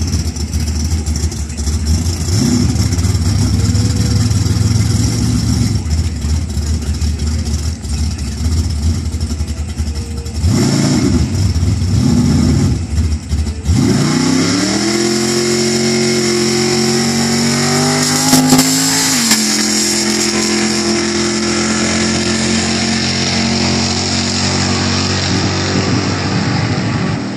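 Drag car's engine idling roughly and blipping at the starting line, then launching about halfway in. The engine pitch climbs steeply, drops once at a gear shift a few seconds later, and holds as the car pulls away down the track.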